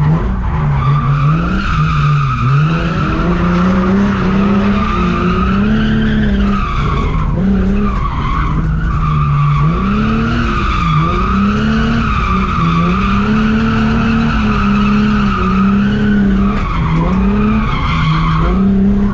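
Drift car engine held high in the revs, its pitch dipping and climbing back again every few seconds through the slide, over the noise of tyres skidding.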